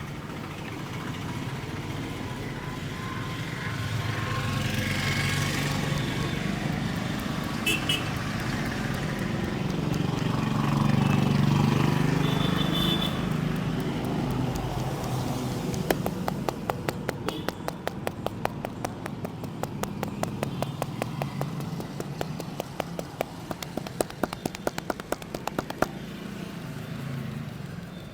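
Street traffic running, with a passing vehicle swelling to its loudest about halfway through. A little past halfway, a fast, even run of sharp slaps begins, several a second, typical of hands tapping on the head in a percussive head massage.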